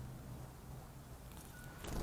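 Outdoor background with a steady low hum; a faint wind-chime note sounds briefly about a second and a half in, followed by a short rush of noise that swells at the very end.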